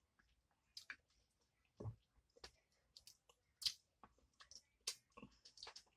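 Faint chewing and wet mouth clicks of a person eating Mi Goreng instant noodles, with a few light chopstick taps on a bowl; scattered short clicks at irregular intervals, the loudest a little past halfway.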